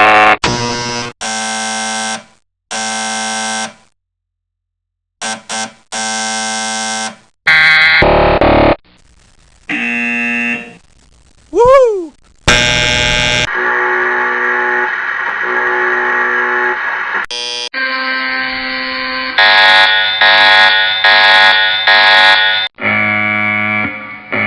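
A series of different electronic buzzer sounds, one after another: two buzzes of about a second each, a few short blips, longer held buzzes, a quick pitch sweep up and down about halfway through, a buzz held for about four seconds, then a run of rapid repeated buzzes near the end.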